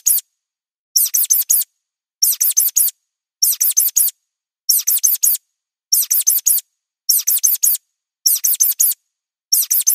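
Looped mouse squeak sound effect: quick runs of four high squeaks, each run repeating about every second and a quarter.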